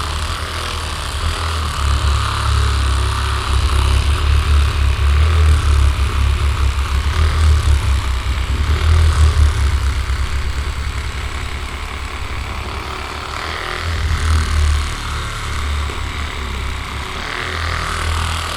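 Several electric vibration massage devices running together at maximum setting: a loud, low mechanical buzz that pulses and swells and eases without stopping.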